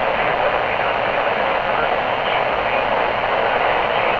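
Steady hiss of static from a NOAA Weather Radio receiver, with no clear voice coming through.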